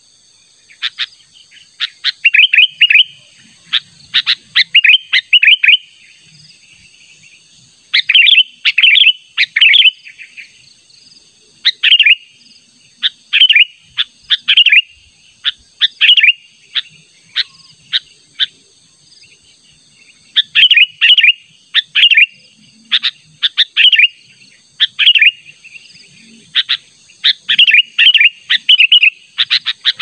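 Sooty-headed bulbul calling: quick clusters of bright chirping notes, each group lasting a second or two, repeated with short pauses and a couple of longer lulls. It is the bulbul's insistent call to a rival.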